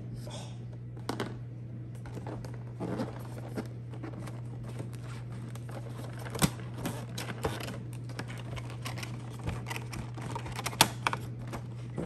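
Cardboard collector-figure box being slit open with a hobby knife and then handled and opened by hand: scattered clicks, taps and scrapes of cardboard and plastic, with the sharpest clicks about six and a half and eleven seconds in. A steady low hum runs underneath.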